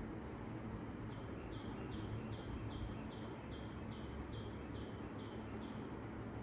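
A bird calling: a run of about a dozen short high notes, each falling in pitch, about two and a half a second, starting about a second in and stopping shortly before the end, over a steady low room hum.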